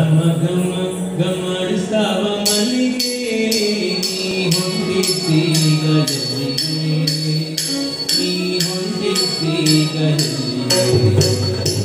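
Live Carnatic music for a Bharatanatyam dance: a melodic line over a drone, joined about two seconds in by bright metallic percussion struck in a steady beat of about two strokes a second.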